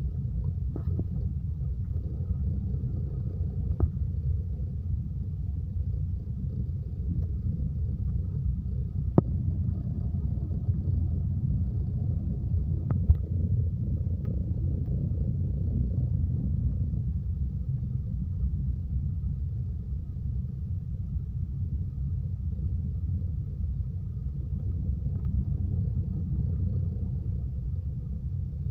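Car driving on an asphalt road, heard from inside the cabin: a steady low rumble of engine and tyres, with a few faint knocks.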